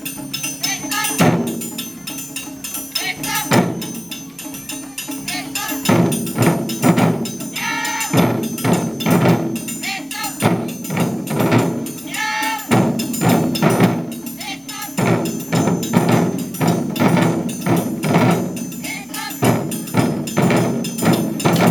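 Ensemble of Japanese taiko drums played by a group in a driving rhythm, with dense repeated strikes and a metallic clink of hand-struck percussion mixed in.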